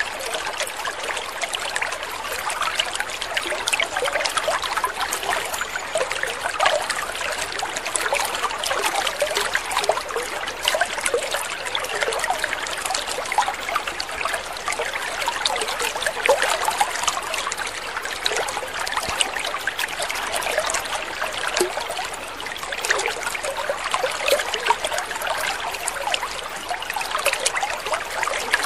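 Water trickling and splashing steadily, with a continuous patter of small, quick splashes.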